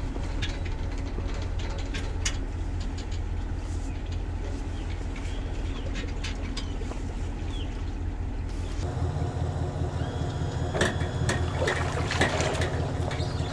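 A vehicle engine running steadily with a low hum, heard from inside the cab. About nine seconds in, the sound opens up: the engine still hums, now joined by scattered sharp clicks and a higher hiss.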